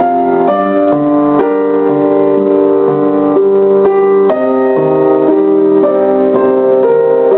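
Background piano music: single notes and chords struck one after another, each fading before the next.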